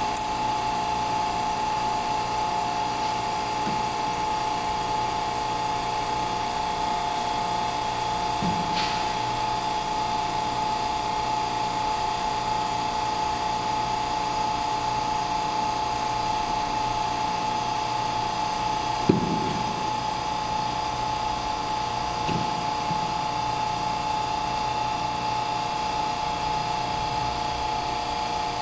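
Electric hydraulic pump of a concrete compression testing machine running with a steady whine as it loads a concrete cylinder. One sharp click about two-thirds of the way through.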